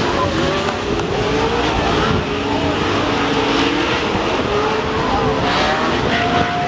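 Off-road race truck engines running on the course, several at once, their pitch rising and falling as they accelerate and ease off.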